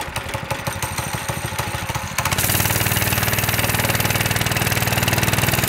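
Stock Predator 212cc single-cylinder four-stroke engine running just after starting on the first pull, at first low and uneven, then louder and steadier from about two seconds in.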